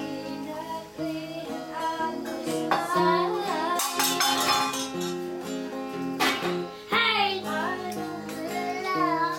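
Acoustic guitar strummed in chords, with a young voice singing a melody along with it from about three seconds in.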